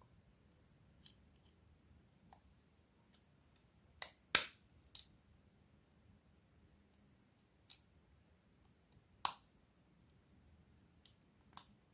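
Sharp clicks and snaps from handling and fitting a smartphone's parts back together during reassembly: three in quick succession about four seconds in, the loudest, then three more single clicks spread out after.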